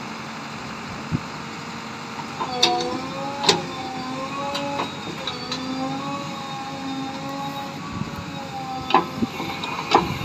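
JCB 3DX backhoe loader's diesel engine running under hydraulic load while the backhoe arm digs. From about two and a half seconds in, a wavering whine rises and falls as the arm moves. Several sharp knocks sound from the arm and bucket, twice early on and twice near the end.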